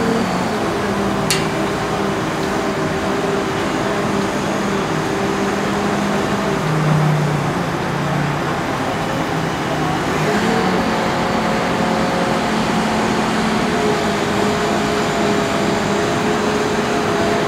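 Truck-mounted crane's engine running steadily as it holds a suspended boat, its pitch shifting slightly about ten seconds in. A single sharp click just over a second in.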